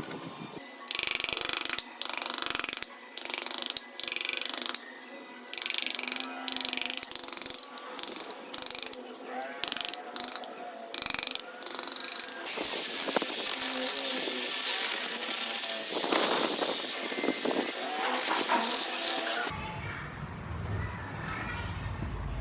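A handheld power tool working wood, run in a string of short on-off bursts and then for several seconds without a break. Near the end it gives way to a lower, duller rumble.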